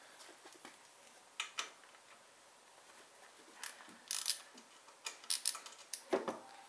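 Hand ratchet wrench clicking in short bursts of quick ticks while turning a bolt on the mower's engine, with a few single metallic clicks between.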